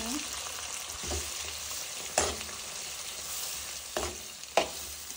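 Cooked toor dal and sambar masala being stirred into a hot oil tempering in a kadhai, with a steady sizzle and about four knocks of the spoon against the pan.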